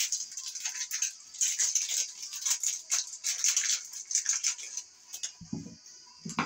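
Small loose screws clicking and rattling as they are picked out by hand: an irregular run of light ticks that thins out after about five seconds, with a soft low thud near the end.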